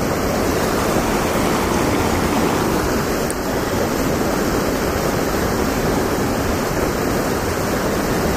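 Steady rush of fast-flowing river water below a spillway.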